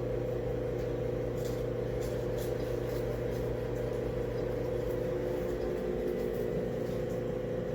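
Steady mechanical hum from a running motor or appliance, with several even tones held throughout.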